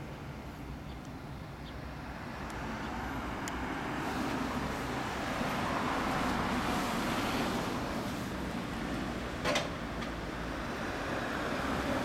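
2006 Yamaha YZF-R6's inline-four idling steadily through an SC Project GP M2 slip-on silencer. A broad swell of traffic noise rises and fades in the middle, and there is one sharp click about nine and a half seconds in.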